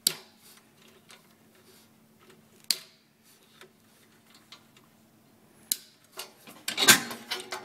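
Scattered sharp metallic clicks and clinks of hand tools and parts as the failed Lamb Ametek motor is taken out of a Premier Clean NV200 ducted vacuum unit, a few single clicks at first and then a quick run of clattering near the end.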